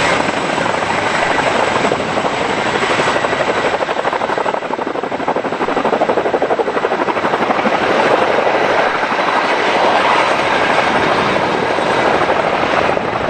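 Boeing CH-47 Chinook tandem-rotor helicopter flying, a loud steady rapid rotor chop over the noise of its turbine engines, swelling slightly partway through.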